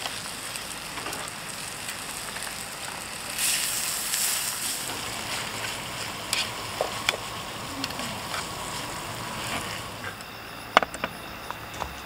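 Stir-fried meat in sauce sizzling in a small pan on a gas camp stove, a steady hiss with light clicks of the tongs against the pan now and then. The hiss thins near the end.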